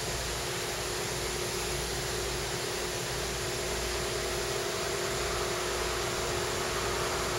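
Steady shop room noise: an even hiss with a steady hum underneath, and a second faint hum joining about halfway through.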